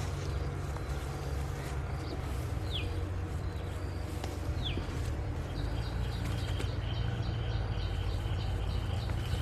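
Wild birds calling: a few short falling whistles, then a quick series of repeated notes about three a second from about halfway through, over a steady low rumble.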